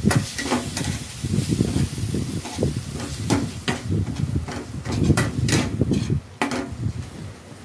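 A metal slotted spoon scraping and knocking against a non-stick pan as it stirs a thick onion-garlic and spice masala, with the masala sizzling. The stirring, with its sharp clicks, stops about six seconds in.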